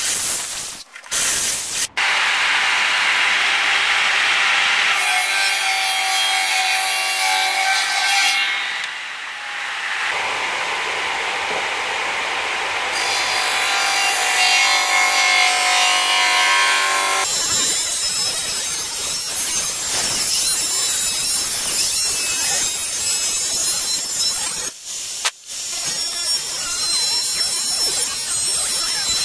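Benchtop jointer-planer running and cutting a wooden board fed along its fence. The cutting noise comes in several stretches that start and stop abruptly, with a brief break near the end.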